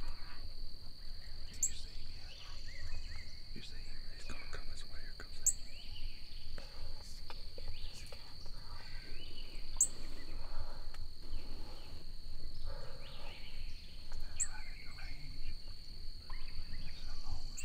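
Steady high-pitched insect chorus, crickets, with a short sharp bird chirp about every four seconds.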